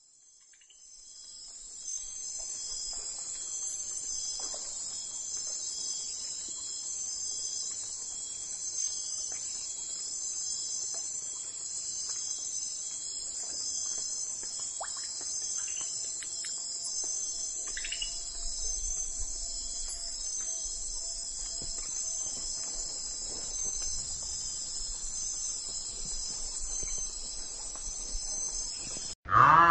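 Insect trilling, cricket-like: a steady high-pitched stridulation with a slow pulsing. It fades in over the first two seconds and stops abruptly near the end.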